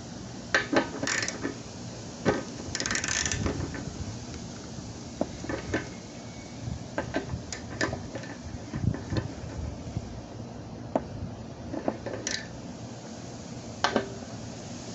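Ratchet socket wrench clicking in short runs as it tightens the mounting screws of a fuel cap, with scattered metallic knocks and a longer rasp about three seconds in.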